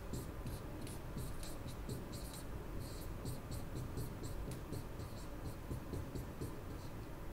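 Marker squeaking and scratching on a whiteboard in a rapid run of short strokes, several a second, as capital letters are written by hand.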